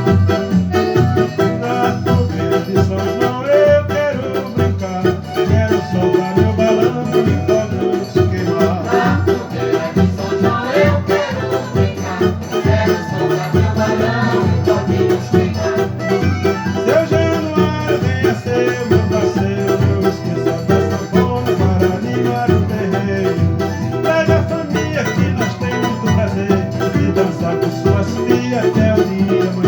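Handmade banjo with a pine top and its own pickup, plucked in a quick, lively melody over a backing with a steady bass beat.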